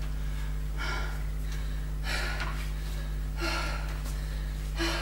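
A woman breathing hard, about four heavy breaths roughly one every second and a half: she is winded just after a high-intensity cardio workout.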